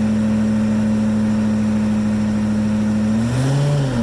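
A 1983 Chevy Suburban's 6.2-litre V8 diesel running at steady, raised revs on its first run after years of sitting. Near the end it revs up briefly, then the revs drop sharply.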